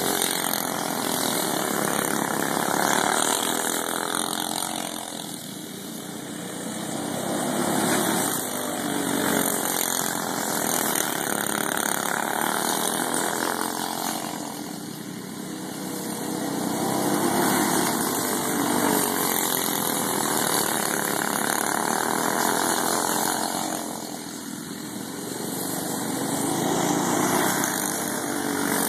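Several go-kart engines running hard around a dirt track, getting louder and fading again about every nine seconds as the karts lap past.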